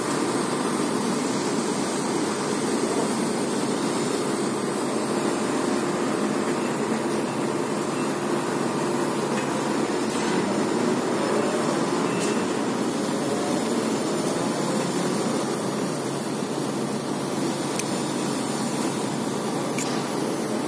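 Heavy construction machinery engine running steadily.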